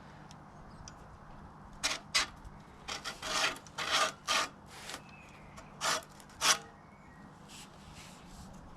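A run of about ten short rasping scrapes, coming in quick irregular strokes for a few seconds, the last one the sharpest.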